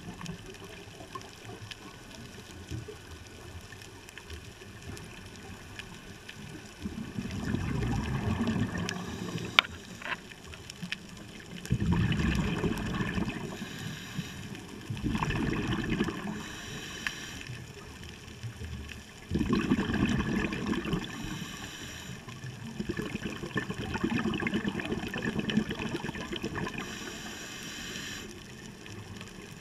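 Scuba regulator exhaust bubbling underwater in about six bursts a few seconds apart, one per exhaled breath, over a steady hiss. A single sharp click about ten seconds in.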